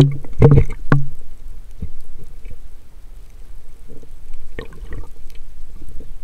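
Water sloshing and gurgling, with short splashy bursts in the first second and again around five seconds in.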